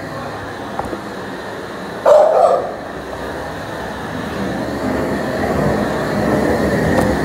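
A dog barks briefly about two seconds in, over a steady background noise that grows louder toward the end.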